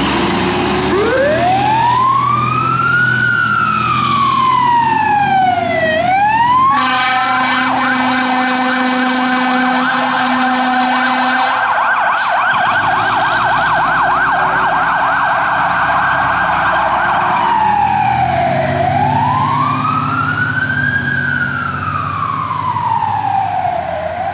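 Fire engine siren winding up from low into a slow rising-and-falling wail, then about seven seconds in switching to a rapid yelp, with a steady low horn tone over its first few seconds. Near the end it goes back to the slow wail, with the truck's engine rumbling underneath.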